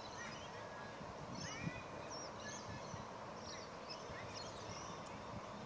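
Birds calling: many short chirps and whistles at irregular intervals, a few of them rising, over a steady low background rumble.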